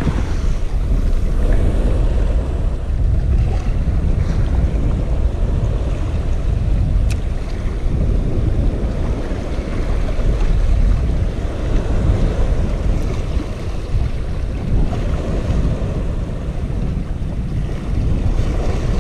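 Wind buffeting the microphone as a steady low rumble, over small waves washing against shoreline rocks.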